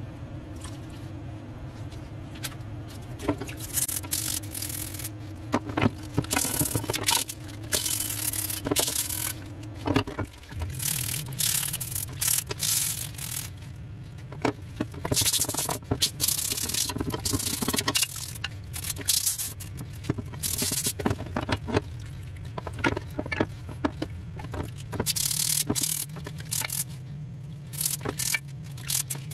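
Scrub brush scraping rusty, painted steel parts under soapy water, in irregular bursts of strokes with a few short knocks, over a low steady hum.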